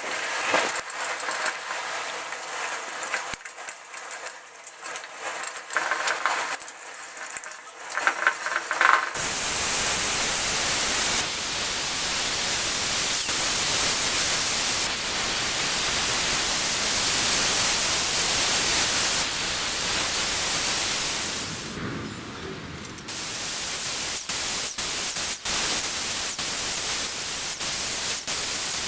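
Wooden knife-handle scales being filed by hand in short, irregular scraping strokes. About nine seconds in, an angle grinder with a sanding disc starts up and runs steadily, sanding the wood with a loud, even hiss that eases briefly about two-thirds of the way through.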